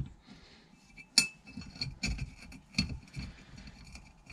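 Metal parts of a hydraulic camper jack's pump plunger and lever linkage clinking against each other and the steel cylinder as they are fitted back on by hand: a few sharp clinks with a short ring, the loudest about a second in.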